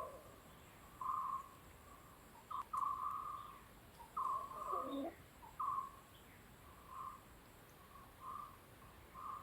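A bird calling again and again on one steady note, each call short, with uneven gaps between them.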